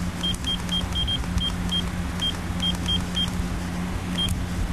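Timex T035 digital alarm clock giving about a dozen short, high key-press beeps, unevenly spaced, as its buttons are pressed to set the timer, over a steady low hum.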